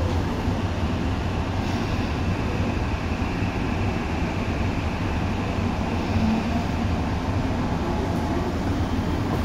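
Tokyu 8500 series electric train running, heard from inside the car: a steady rumble of wheels on rail and running gear, with a faint higher hum in the middle.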